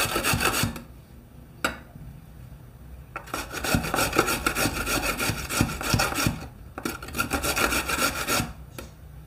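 Raw potatoes being grated by hand on a grater, in runs of quick rasping strokes with a pause of about two seconds after the first run.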